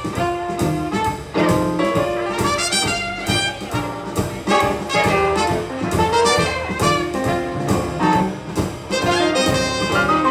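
Live small swing jazz band playing with a steady beat: brass and saxophone horn lines over acoustic guitar, double bass and drums.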